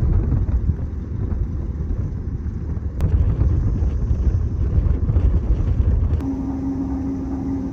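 Low, heavy rumble of a trawler under way, its diesel engine running with wash and wind noise mixed in. About six seconds in, the sound changes abruptly to a steadier hum with a single steady tone.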